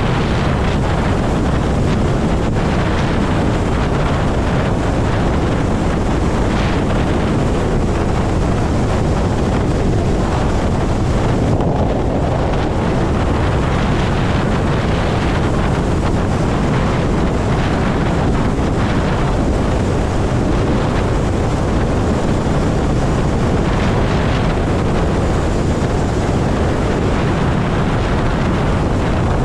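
Wind noise on the microphone from riding a Zero electric motorcycle at highway speed: a loud, steady rush with no engine note.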